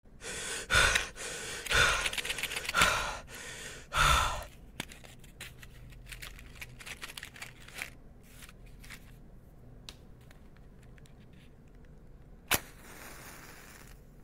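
Four loud, rough rushes of noise in the first four seconds, then scattered faint clicks. Near the end a match is struck with a sharp scrape and flares with a short fizzing hiss.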